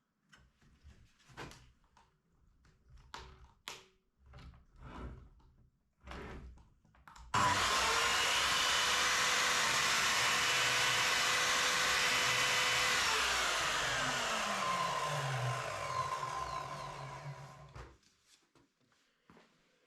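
A few scattered knocks and handling sounds, then about seven seconds in an electric motor switches on abruptly with a steady whine. It runs for several seconds, then is switched off and winds down, its pitch falling until it stops a couple of seconds before the end.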